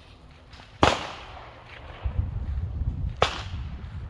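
Two gunshots on a shooting range, one about a second in and another about two and a half seconds later, each a sharp crack with a short tail.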